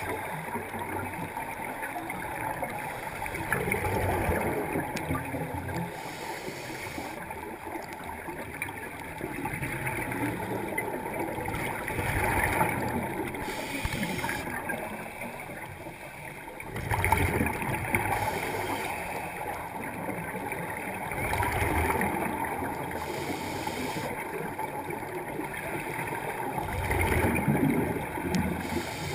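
Scuba regulator breathing heard underwater: exhaled air bubbling and gurgling out of the regulator, swelling with each breath every four to five seconds.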